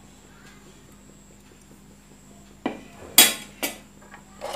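Steel ladle and spoon clinking against the aluminium pressure cooker and a steel plate as ground spices are tipped into the dal and stirred in. About five sharp clinks in the second half, the loudest about three seconds in.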